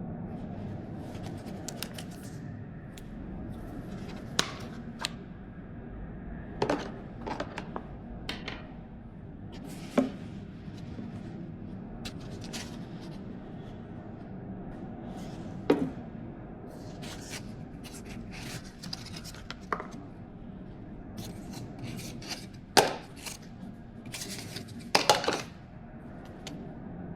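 Packaging and product being handled during an unboxing: scattered clicks, taps and short rustling and scraping sounds. The sharpest click comes a little after three-quarters of the way through, followed by a cluster of rustling. A steady low room hum runs underneath.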